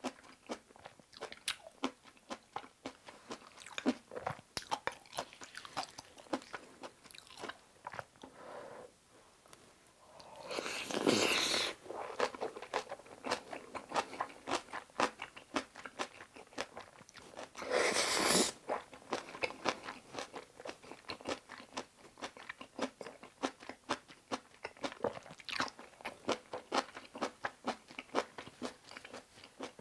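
Close-miked eating sounds: a person chewing and biting kimchi fried rice and kimchi, a steady run of small wet clicks and crunches, with two louder, longer bites about eleven and eighteen seconds in.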